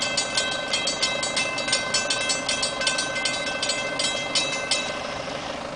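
Railroad crossing signal bell ringing in rapid, even strikes, about four or five a second, then stopping suddenly near the end.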